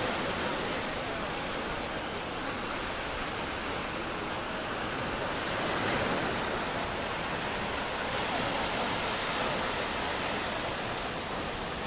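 Small waves washing onto a sandy beach: a steady rushing hiss of surf that swells slightly about six seconds in.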